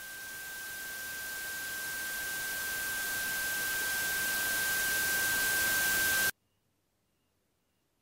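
Static-like hiss with a single steady high tone through it, swelling gradually louder and then cutting off suddenly about six seconds in.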